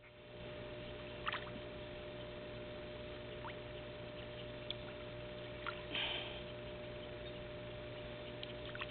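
Quiet outdoor ambience: a steady low hum with a few faint, brief chirps.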